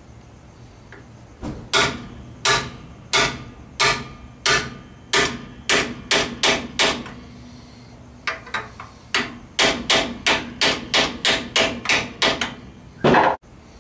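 Hammer tapping a metal driver held in the end of a GM 10-bolt 7.5-inch rear axle tube, seating a new part in the axle housing. About a dozen strikes, quickening, then a pause of about a second and a faster run of about fifteen strikes. A short, louder clunk near the end.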